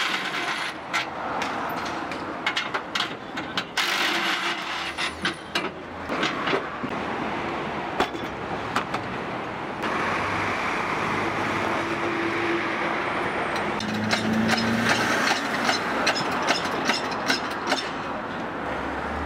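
Cooking clatter at a ramen stall: repeated clinks and knocks of utensils and bowls over a steady hiss. The background noise changes abruptly about ten seconds in.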